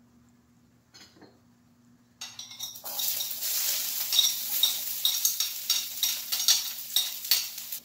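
Onion sizzling as it goes into hot olive oil in a wok, starting about two seconds in, with a metal utensil clinking and scraping against the plate and pan.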